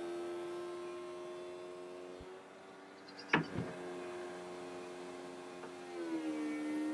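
A small electric motor whines steadily and stops about two seconds in. A sharp click comes about three and a half seconds in, and near the end the motor starts whining again, its pitch dipping slightly.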